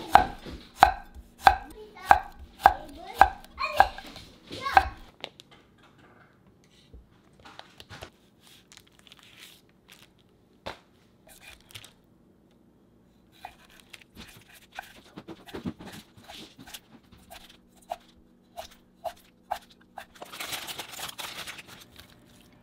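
Kitchen knife chopping on a cutting board: a steady run of sharp, ringing strokes about every half second for the first five seconds, then scattered light taps and a second, lighter run of chopping. A short rush of noise comes near the end.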